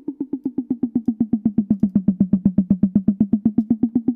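A short pitched electronic drum hit repeating quickly, about ten times a second. Its pitch drops about a second in, and it grows louder toward the middle: pitch and volume are being automated to move it through a three-dimensional mix space.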